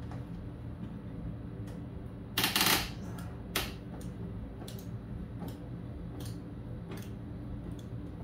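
Hand ratchet clicking in short spells, with light metal clicks and one loud rattling spell a couple of seconds in, as a golf cart's body screw is worked loose. A steady low hum runs underneath.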